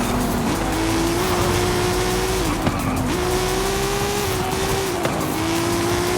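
Car engine pulling hard under steady acceleration, its pitch slowly climbing, with two brief dips about two and a half and five seconds in, as at gear changes. Tyre and road noise runs underneath.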